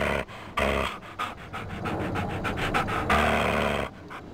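Rapid, rhythmic animal panting, about six or seven breaths a second, broken by a few longer, steady stretches.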